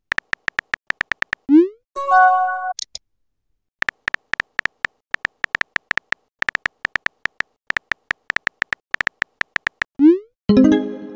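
Texting app sound effects: quick keyboard tap clicks as a message is typed out, then a short rising whoosh and a brief synthesized chime of several tones about one and a half seconds in. A longer run of taps follows, and near the end another whoosh and chime.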